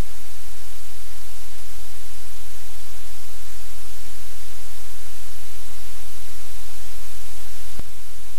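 Loud, steady hiss of static over a low electrical hum, with a single click near the end after which it is a little quieter.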